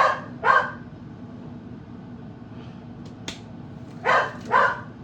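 Dog barking: two short barks right at the start, then two more close together near the end.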